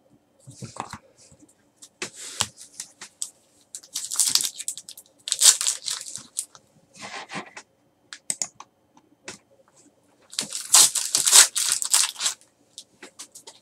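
Panini Select basketball card pack's foil wrapper being torn open and crinkled by hand, in several short bursts with the loudest near the end.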